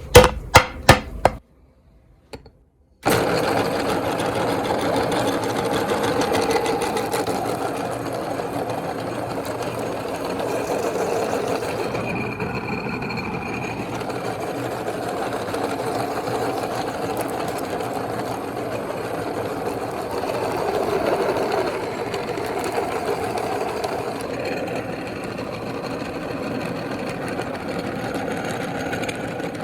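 Electric meat grinder running steadily, grinding chocolate-coated ice cream bars. It starts about three seconds in, after a few sharp knocks and a brief pause.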